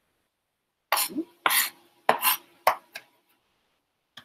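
Chef's knife striking and scraping on a plastic cutting board while garlic is minced: a brief pause, then about six loud strokes over two seconds, and one light tap near the end.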